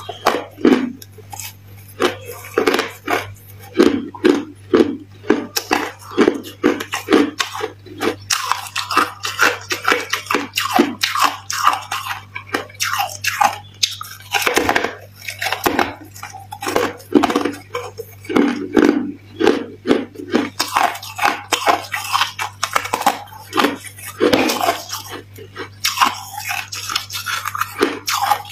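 A slab of freezer frost being bitten and chewed close to the mouth: crisp crunches over and over, with a few louder bites among them. A steady low hum sits underneath.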